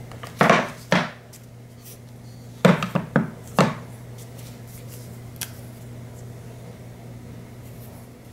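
Knocks and clacks of a white watch case and its lid being handled and set down on a wooden tabletop: a pair about half a second in, then a quick run of four or five around three seconds in. A low steady hum runs underneath.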